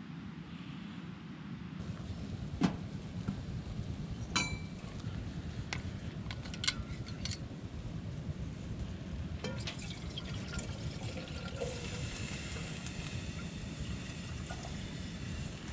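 A kettle on a wood-burning stove simmering with a hiss, with a few sharp metallic clinks and knocks from the kettle and stove being handled, over a steady low rumble.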